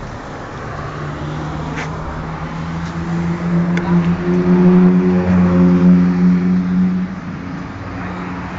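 A motor vehicle's engine running close by, a steady low hum that grows louder from about three seconds in and drops away shortly before seven seconds, over a background of street traffic noise.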